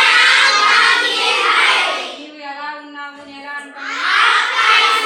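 A class of children chanting loudly in unison twice. Between the two choruses, a single voice gives the next line for about a second and a half, in a call-and-response repetition.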